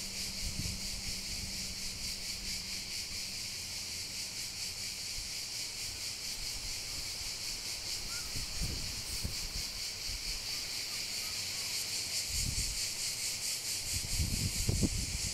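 Steady, high-pitched chorus of insects chirring with a fast pulsing buzz. Low thumps and rumbles come in a few times in the second half, louder near the end.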